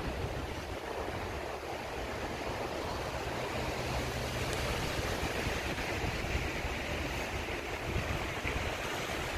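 Strong gusty wind rushing through leafy trees, a steady hiss of tossing leaves, with wind buffeting the microphone as a low rumble.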